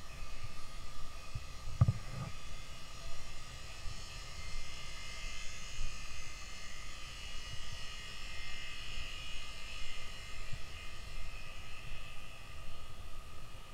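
Steady drone of a dive boat's machinery, with wind gusting on the microphone; a single thump about two seconds in.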